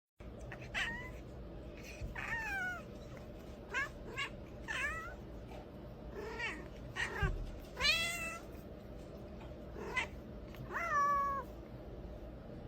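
A cat meowing over and over, about ten short calls with pitch that bends and falls, the longest near the middle and another about a second before the end.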